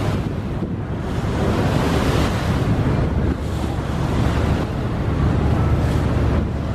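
Rushing, splashing water thrown up by the hull of the high-speed river water bus MV Green Line-2 as it ploughs through choppy water, with wind buffeting the microphone as a steady low rumble.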